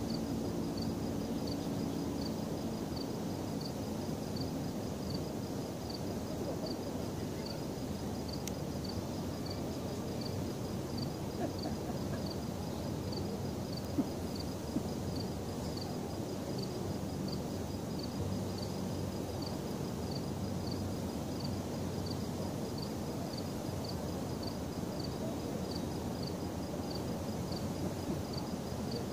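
Night-time outdoor ambience: a cricket chirping steadily, about one and a half chirps a second, over a low steady rumble of background noise. Two sharp clicks come about halfway through.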